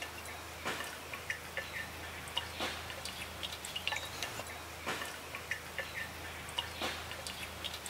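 Water dripping from a makeshift drinking-water filter into a steel can, a sharp drop about every two seconds with smaller high plinks between them.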